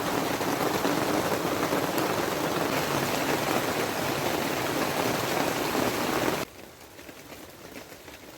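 Heavy rain pouring down in a dense, steady hiss. About six and a half seconds in it drops suddenly to a much fainter patter.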